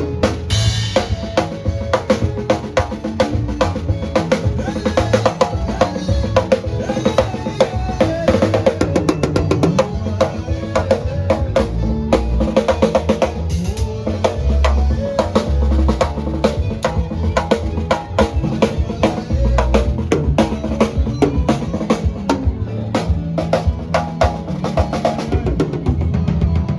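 Music driven by a drum kit, with bass drum, snare and rimshot strikes keeping a steady, busy beat over a strong bass.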